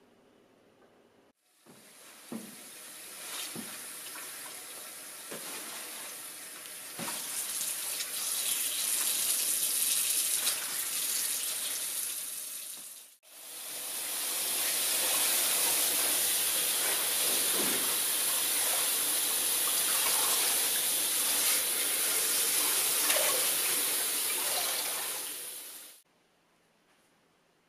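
Kitchen tap running into a stainless steel sink while leaves are rinsed by hand, a steady rush of water with a few light knocks and splashes in the first half. The water cuts off sharply about halfway through, starts again at once, and stops abruptly near the end.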